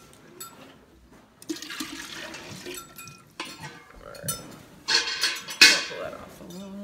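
Milk poured from a small milking pail into a stainless steel milk can, splashing in pours that are loudest about five to six seconds in, with a few light metal clinks.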